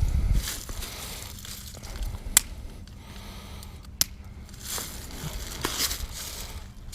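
Dry twigs and small sticks being snapped, crunched and rustled by hand as they are fed into a Kelly Kettle's fire base, with a few sharp snaps standing out about two and four seconds in.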